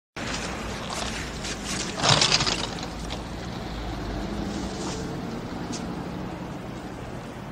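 Steady city street ambience with traffic noise, with a louder rush of hiss about two seconds in.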